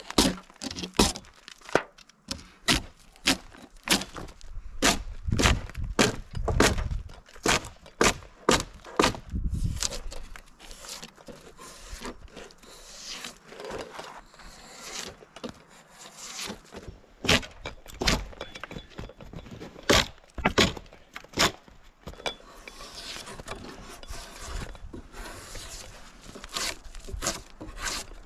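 Irregular wooden knocks and clunks from heavy milled pine lumber being handled and positioned, with stretches of scraping and rubbing between them.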